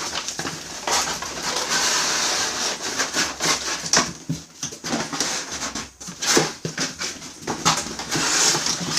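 Packaging being handled while unboxing a coffee machine: continuous rustling and crinkling of plastic and cardboard, broken by sharp crackles and small knocks.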